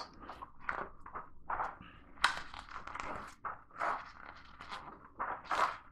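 Glossy rulebook pages being turned by hand: a run of short, irregular paper swishes and rustles.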